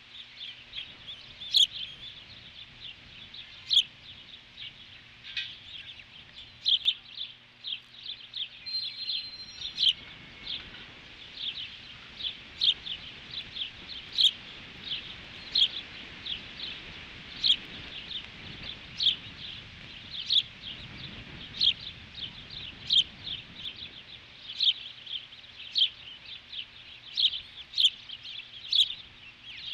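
Osprey calling: a continuous run of short, sharp chirps that slide down in pitch, several a second. Wind rumbles on the microphone through the middle.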